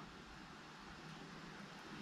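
Very quiet room tone: a faint, steady hiss with no distinct sounds.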